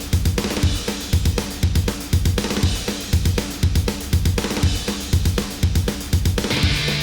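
Drum-kit intro of a hardcore punk song, programmed with plugin drums: a steady, driving beat of bass drum, snare and cymbals. Distorted guitar and bass come in near the end.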